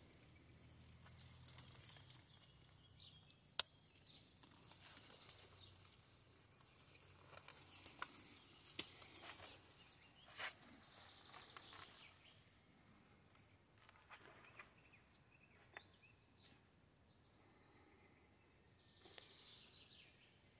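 Faint outdoor background with a steady high hiss and scattered clicks and rustles from a phone being handled and moved. This is busiest in the first twelve seconds, then dies down to a few faint ticks.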